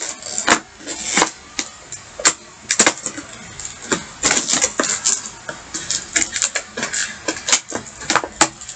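Stiff plastic toy packaging crackling and snapping as it is pulled and worked apart by hand to free the figure, in irregular sharp clicks.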